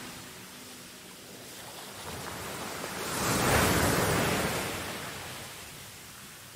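Small waves washing onto a sandy beach: one gentle surge of surf swells up about three seconds in and slowly fades away.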